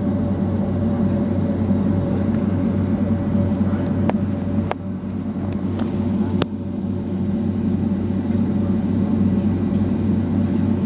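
Steady drone inside a Boeing 757-200 cabin with its engines running: a low hum with a steady higher tone over it. A few sharp clicks come near the middle.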